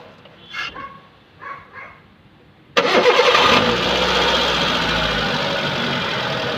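Hyundai Santro engine starting about three seconds in: a brief crank as it catches, then a steady idle. With a new power steering pump bearing fitted, the idle is free of the grinding noise the worn bearing used to make at start-up.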